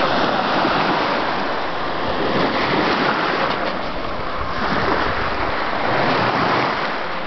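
Sea waves washing steadily, swelling and easing, with wind buffeting the microphone.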